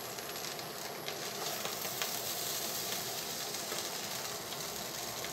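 Egg fried rice sizzling steadily in a pot while it is stirred with a wooden spatula, with a few faint scrapes.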